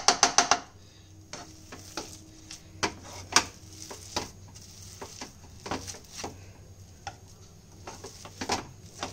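Wire potato masher pressing boiled potato and prawn paste in a non-stick frying pan, its metal knocking on the pan: a quick run of clanks at the start, then scattered single knocks with soft squashing between.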